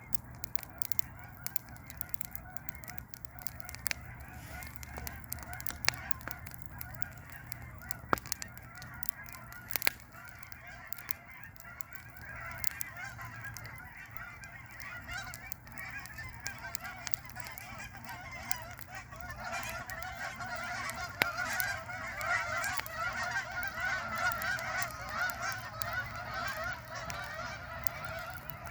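Fire crackling with sharp pops, while a flock of geese honks overhead. The honking thickens through the middle and is loudest in the second half.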